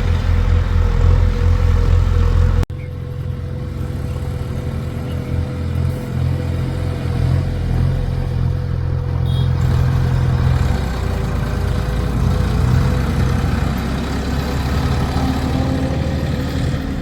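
Diesel engine of heavy machinery running with a steady low throb. About three seconds in the sound breaks off abruptly and picks up again slightly quieter, with the engine note changing a little later on.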